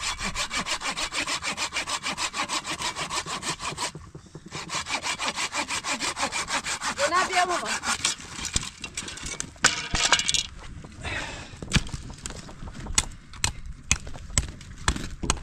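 Wood being sawn by hand: quick, even back-and-forth strokes, about four or five a second, with a brief pause about four seconds in. The sawing stops a little past halfway, and a few scattered knocks follow.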